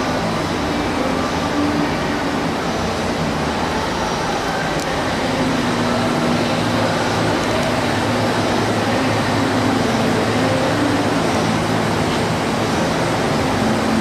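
Steady machine-shop background noise: a constant low hum and rumble of running machinery, with no distinct events.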